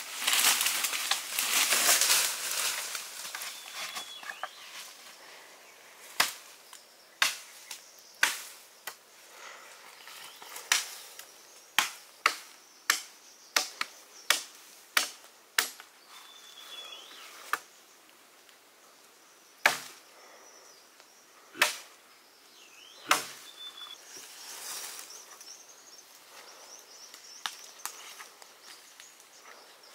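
A large curved knife chopping a tree branch: a run of about fifteen sharp, irregularly spaced strikes into wood, the last few the loudest. Before the strikes, a few seconds of loud rustling through brush.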